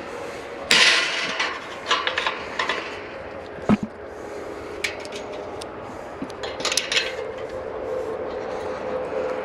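Clatter of objects being handled: a brief rush of noise, a run of short knocks and a single low thud, over a faint steady hum.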